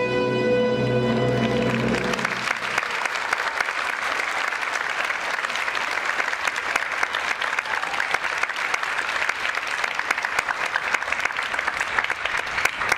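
Recorded music ends on a held chord about two seconds in; then a theatre audience applauds, many people clapping steadily.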